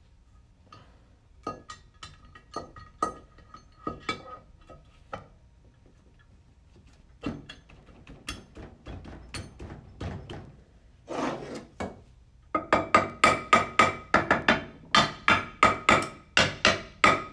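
Aluminium CVT transmission rear cover being knocked down over its guide pins with a metal tube to seat and centre the bearing: metallic knocks with a ringing tone. They are scattered at first, then become a rapid, louder run of about three or four knocks a second over the last five seconds.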